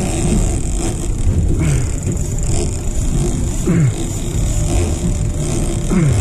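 Boat's engine running under wind and water noise, with a short falling tone about once a second.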